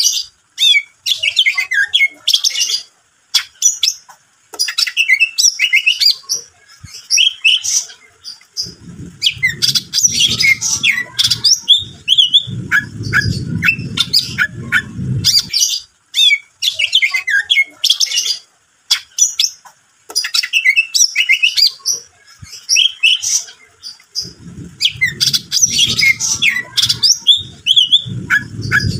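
Greater green leafbird (cucak ijo) singing in full, continuous song: fast strings of varied chirps, whistles and mimicked notes with short breaks. A low rumbling noise runs under the song twice, from about a third of the way in to the middle and again near the end.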